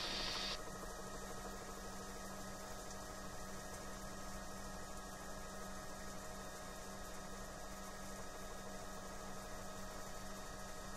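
Bell 505 helicopter in flight, heard from inside the cockpit: the steady, unchanging drone of its Safran turbine engine and rotor drive, a low hum with several constant tones over an even hiss.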